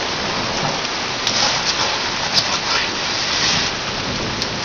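Steady rain falling during a thunderstorm, with a few sharp drop taps near the microphone.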